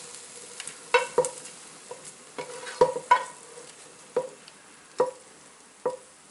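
A spoon scraping and knocking against a skillet as cooked cabbage is pushed out of it into a pot, about eight sharp clinks spread over several seconds, over a faint steady hiss.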